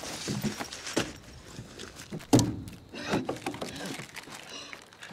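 Hands and small objects knocking and shuffling on a hard surface, with one heavier thump about two and a half seconds in.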